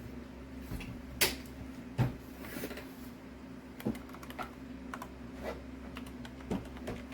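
Typing on a computer keyboard: irregular keystrokes, a few of them louder, with a steady low hum underneath.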